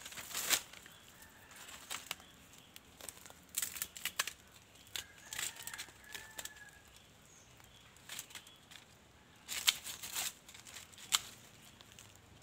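Dry leaves, twigs and brush crackling and rustling in irregular bursts as branches are pulled and shifted by hand. The loudest bursts come about half a second in and again near the end, with a sharp snap just after.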